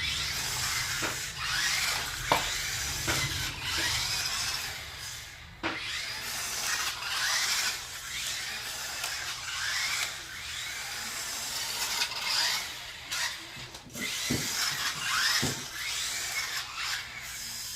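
A 1/18-scale toy RC truck's twin small electric motors whine as it is driven, rising and falling in pitch with repeated bursts of throttle. Gear and tyre rattle run under it, with a few sharp knocks as it bumps into things.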